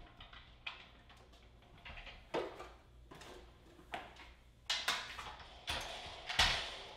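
Scattered knocks and clicks of a pull-down projector screen's long case being unhooked from its ceiling mounts and handled as it is lowered, with a few sharper knocks in the second half.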